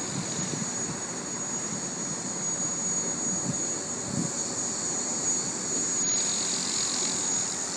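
JR NEX E6 radio-controlled helicopter in flight: a steady high whine over a rushing rotor noise, growing slightly louder as it climbs and comes toward the listener.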